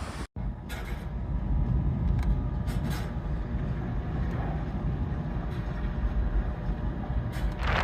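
A vehicle running with a steady low rumble, with a few faint clicks.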